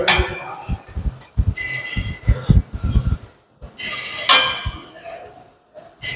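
A man breathing hard after a set of exercise, with loud rough exhalations, the strongest about four seconds in, and a run of low thuds between them.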